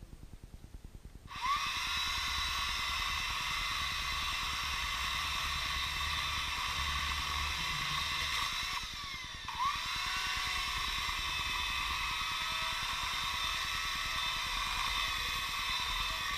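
Chainsaw opened up to full throttle about a second in and held at a high, steady whine while cutting dry wood. The revs drop briefly and climb again about nine seconds in.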